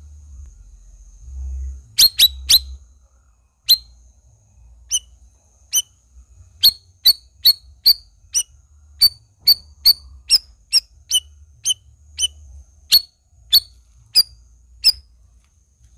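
Cucak rawis calling: a long series of short, sharp high chip notes, starting about two seconds in and coming about two to three a second.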